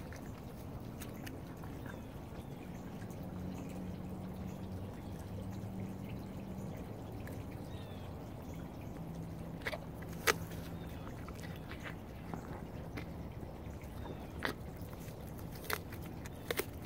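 White-tailed buck chewing a mouthful of apple, with wet mouth sounds and a few sharp crunches about ten seconds in and again near the end.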